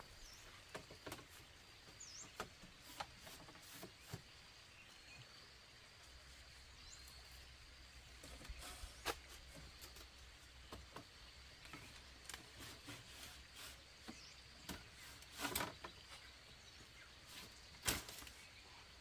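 Quiet rural ambience: scattered light clicks and knocks, the loudest about halfway through and near the end, with a few brief high bird chirps and a faint steady high tone.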